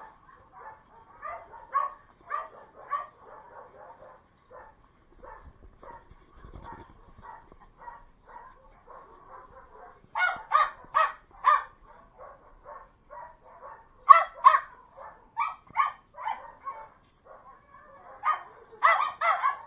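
Dogs barking in kennel runs: fainter barking goes on throughout, and three runs of loud, rapid barks come from about halfway in.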